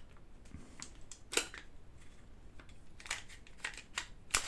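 Clicks and knocks of parts being handled as a Marui gas blowback airsoft rifle is taken apart to remove its bolt: one sharp click about a second and a half in, a cluster of clicks a second or so before the end, and the loudest knock near the end.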